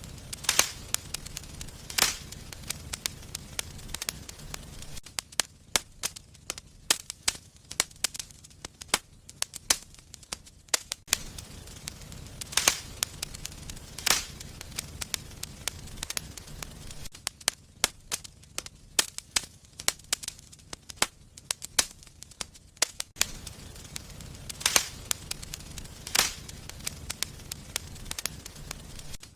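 Wood fire burning in a fireplace, crackling with a steady patter of small snaps and a few louder pops every several seconds, over a low rumble of the flames that comes and goes.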